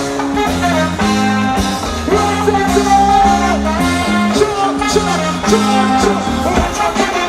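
Live reggae band playing loudly, with a bass line stepping between notes, drums and a singing voice over it.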